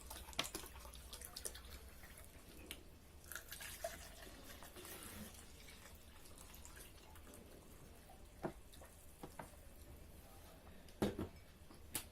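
Quiet eating sounds: scattered small clicks and wet mouth and finger sounds, with a few sharper clinks or knocks near the end.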